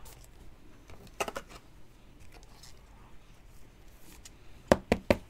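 Trading cards being handled on a table: light rustling and scattered clicks, then three sharp taps in quick succession near the end.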